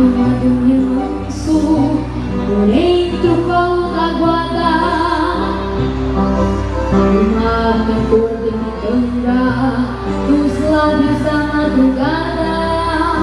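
A child singing a gaúcho regional song into a stage microphone, accompanied by piano accordion and acoustic guitar, with a steady alternating bass line underneath.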